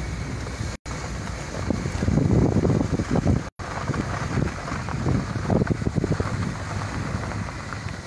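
Wind buffeting a phone microphone, with the rumble of a moving vehicle underneath; the gusts are strongest a couple of seconds in. The sound cuts out completely for an instant twice.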